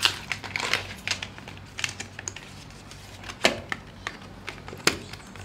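Small plastic accessory parts of a wireless microphone and GoPro mount being handled and fitted together: a quick run of sharp clicks and taps at the start, then a few single clicks spaced out.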